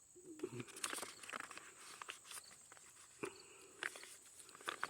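Faint irregular clicks and rustles of something being handled, over a steady high chirr of crickets.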